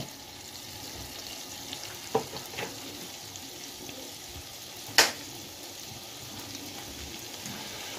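Butter with a little oil melting in a nonstick frying pan, sizzling quietly and steadily as the first step of a béchamel. A few light clicks come through, with one sharp tick about five seconds in.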